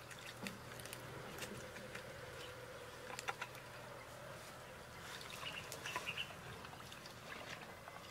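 Water poured from a plastic bottle into a metal wok of fish, with scattered light clicks and knocks of the bottle and of hands handling the fish in the wok. Faint bird chirps about five to six seconds in.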